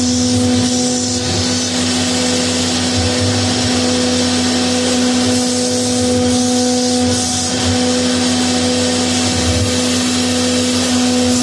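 CNC router running steadily, its spindle giving a constant whine over the hiss of the cutter working the door panel.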